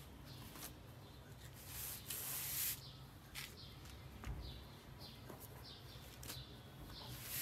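Rustling of a satin scarf and a plastic mailer bag being handled, loudest about two seconds in and again near the end. Short, high, falling chirps recur throughout.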